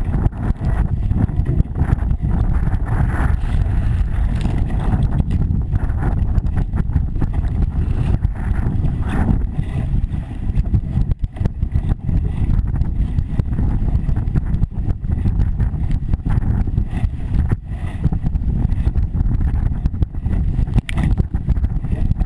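Wind buffeting the microphone of a camera mounted on a sailing dinghy, over water rushing and splashing along the hull as the boat sails fast through chop. The noise is loud and gusty, with no let-up.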